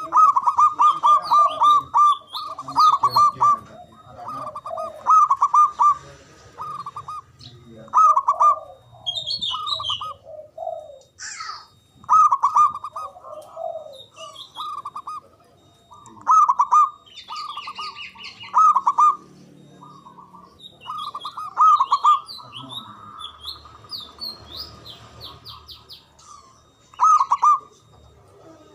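Zebra dove (Javanese perkutut) singing its cooing song: loud, repeated phrases of quick bubbling coo notes with short pauses between them. Thin high chirps of other small birds sound in the background.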